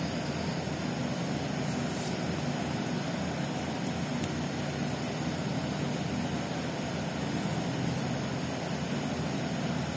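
Steady background noise: an even hiss with a low rumble, level throughout, with no distinct knocks, clicks or tones.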